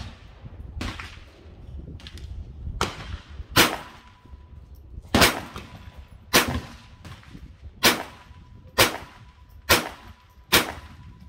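Ruger Mark IV Tactical .22 LR pistol firing a string of single shots. There are two fainter reports in the first three seconds, then seven sharp reports at about one a second.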